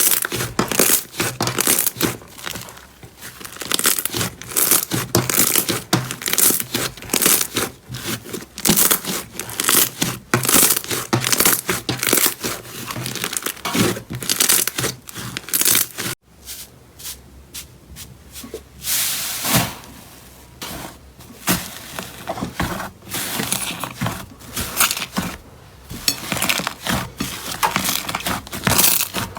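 Slime being squeezed, stretched and pressed by hand, making dense, irregular crackles and small pops. The sound breaks off abruptly about halfway through and resumes sparser.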